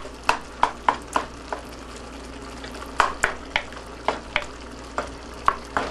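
Wooden spoon stirring and pressing canned tomato into browned ground meat in a metal pot, with a dozen or so sharp, irregular knocks of the spoon against the pan over a steady sizzle. The tomato is being fried briefly on the hot pan bottom to cook off its canned taste.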